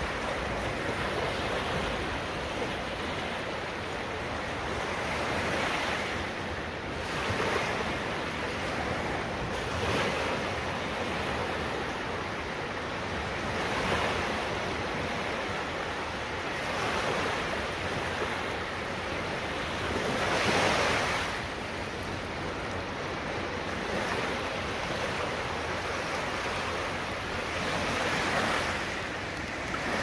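Sea surf at night: small waves breaking and washing up a sandy, pebbly beach, a continuous hiss that swells every three to four seconds as each wave comes in.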